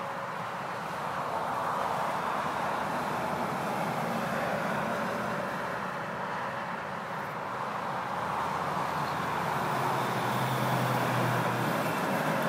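Road traffic: a steady rush of tyre and engine noise from passing vehicles, swelling about two seconds in and again near the end as vehicles go by.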